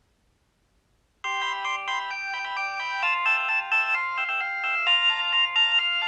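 Nokia 3200 mobile phone ringtone: a synthesized melody with several notes sounding at once, starting about a second in after a short silence and playing on.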